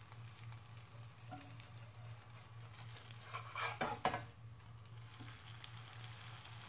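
Msemen flatbread frying in a little oil in a heavy pan: a faint sizzle over a steady low hum. About three and a half seconds in, a louder burst of spatula scraping and sizzling lasting about a second as the flatbread is lifted and flipped.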